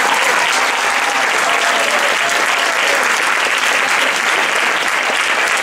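Audience applauding steadily, with a few faint voices calling out over the clapping.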